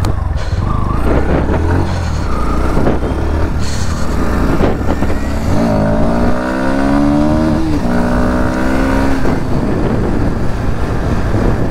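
Motorcycle engine running under way, with wind rushing over the helmet-mounted microphone. About halfway through the engine note rises as the bike accelerates, breaks off briefly as if for a gear change, then pulls again.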